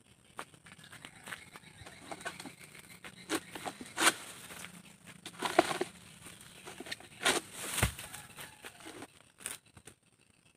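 Irregular knocks, scrapes and rustles of a long-handled oil palm harvesting sickle pole being worked into the palm's crown against the frond bases and leaves. The loudest strikes come about four seconds in, again at five and a half, and twice between seven and eight seconds.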